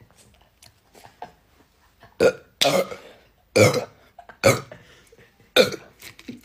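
A person burping about five times in a row, starting about two seconds in, each burp a short separate burst.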